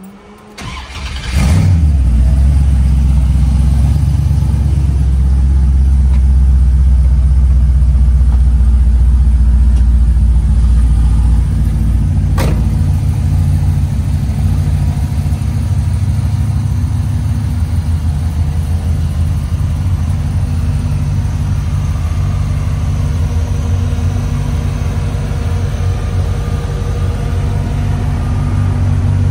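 1972 Corvette's LS7 V8 cranking briefly and firing up about a second in, then settling into a steady idle. A single sharp click about twelve seconds in.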